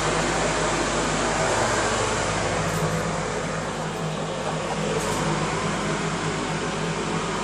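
A steady low machine hum under a constant rush of noise, unchanging throughout.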